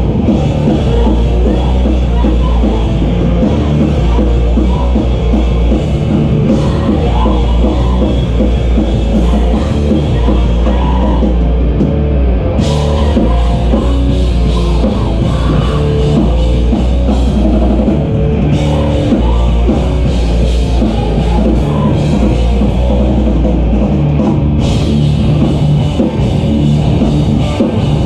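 Live rock band playing loud, with amplified guitar and a pounding drum kit. The cymbals cut out briefly and come crashing back in about halfway through, and again near the end.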